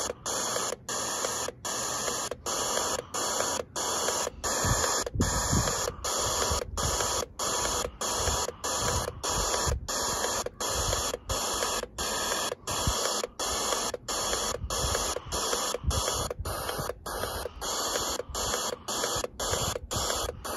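Borne portable radio's speaker hissing with FM static between stations, broken by a short silent gap each time the tuning steps up a notch, about one and a half gaps a second.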